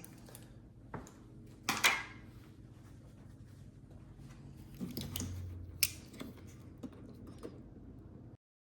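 Small tool tip scraping and clicking against the plastic locking prongs of a headlight wiring plug: scattered light clicks and scrapes, the loudest scrape about two seconds in and a sharp click near six seconds. The sound cuts off abruptly near the end.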